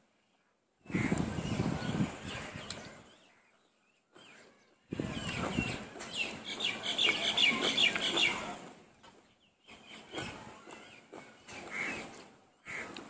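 Birds chirping, most busily in the middle, between bursts of noise that start and stop abruptly.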